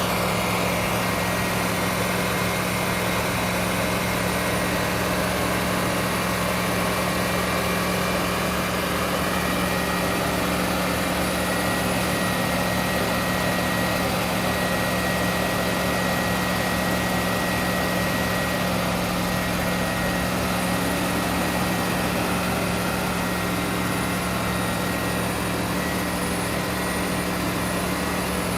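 A heavy-equipment diesel engine running steadily with an even, unchanging hum.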